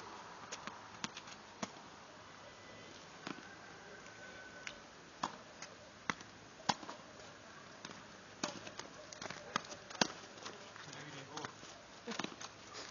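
A tennis rally on an outdoor hard court: sharp knocks of the ball off racket strings and bouncing on the court, coming irregularly every second or so.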